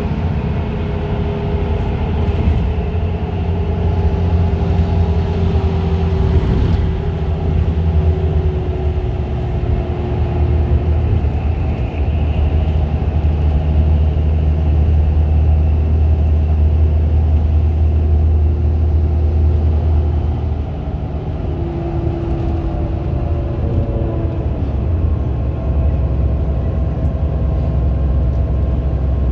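Riding inside a moving İETT city bus: a low, steady engine rumble with road noise, the engine note sliding up and down as the bus changes speed.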